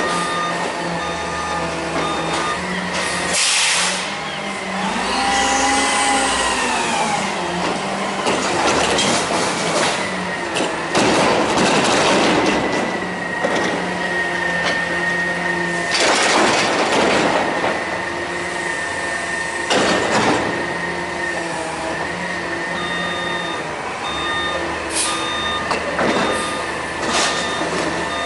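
Front-loader garbage truck's CNG engine revving to power the hydraulic forks as they lift a dumpster over the cab and empty it into the hopper. Several bangs and crashes come as the trash drops and the steel container is shaken. A beeping alarm sounds near the start and again near the end.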